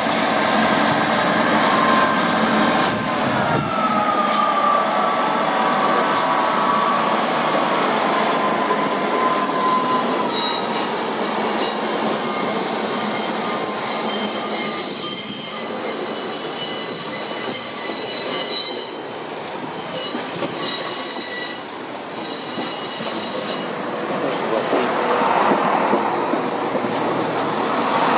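Diesel multiple units rolling slowly through a station over curved track, their wheels squealing: one squeal slides down in pitch over the first several seconds, then several high squeals ring together mid-way. A second train rolls in close by near the end.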